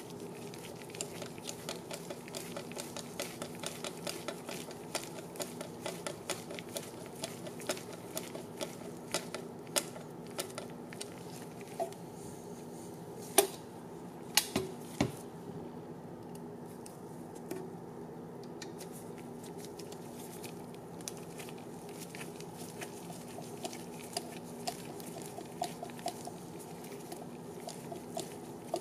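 Small, regular clicking from a hand screwdriver turning small screws into a quadcopter frame, about two or three clicks a second, with a couple of louder knocks about halfway through.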